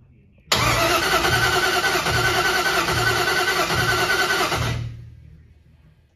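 Starter cranking the 1961 Impala's engine over with the plug wires off, for a compression test on cylinder number seven. It turns over for about four seconds with an even pulsing beat, then stops. The gauge reads close to 160 psi: healthy compression on that cylinder.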